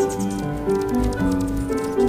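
Background instrumental music: a melody of short held notes that changes pitch a few times a second.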